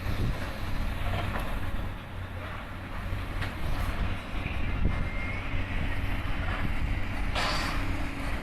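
Heavy demolition machinery running with a steady low engine rumble, scattered knocks and a short burst of noise about seven seconds in.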